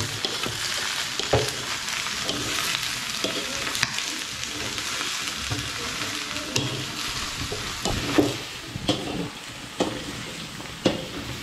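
Diced zucchini sizzling steadily in a steel wok over a gas flame, with a wooden spatula scraping and knocking against the pan as the vegetables are stirred; the sharpest knock comes about eight seconds in.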